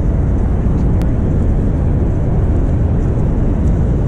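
Steady, loud low rumble of wind buffeting a handheld camera's microphone outdoors, with one sharp click about a second in.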